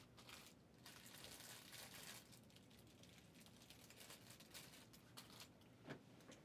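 Near silence, with faint crinkling and rustling as of plastic or paper being handled, and a light tap near the end.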